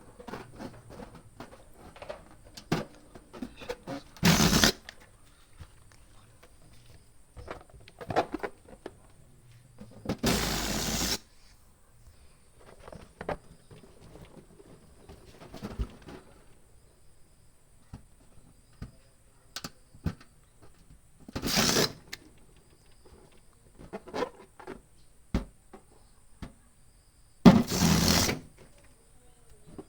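Balloons and a hand balloon pump being handled: small clicks and rubbing noises throughout, with four loud rushes of air, each about half a second to a second long, as the pump blows air.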